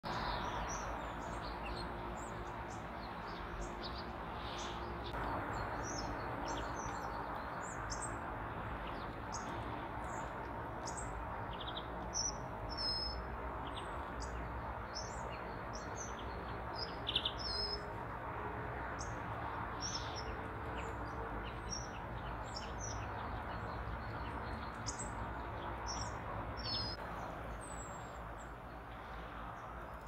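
Small songbirds at a winter feeder giving many short, high chirps and calls, one after another, over a steady low background rumble.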